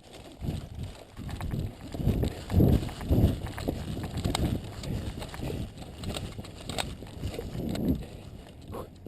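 Footsteps of a person moving quickly on rough ground, heard close to a body-worn camera as regular thuds about two a second, with scattered clicks and rustle.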